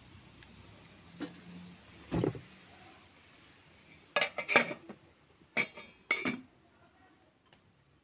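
Stainless steel pots and lids clattering as they are handled and covered: a dull thump about two seconds in, then several sharp, ringing metal clinks in three clusters over the next few seconds.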